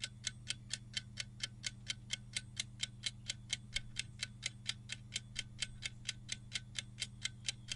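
Clock-ticking sound effect for a quiz countdown timer: quick even ticks, about five a second, over a faint steady low hum.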